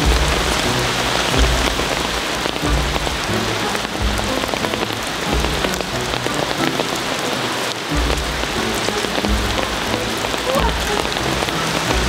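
Steady rain falling, a dense even patter, with background music's low bass notes pulsing underneath.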